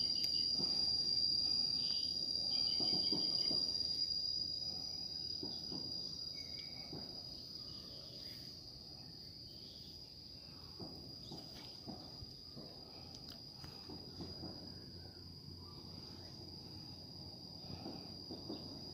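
Insects calling in one steady, high-pitched trill, over low rumbling background noise that fades away over the first several seconds.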